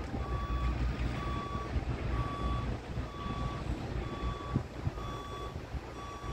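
Reversing alarm of a construction machine beeping at one steady pitch, about one beep a second, over a low rumble.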